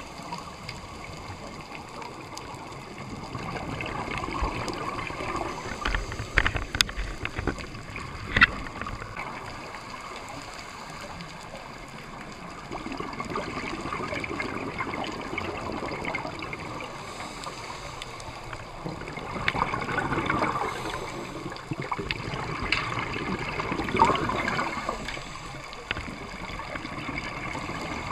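Scuba regulator breathing heard underwater: exhaled bubbles gurgle in swells every few seconds, with a few sharp clicks.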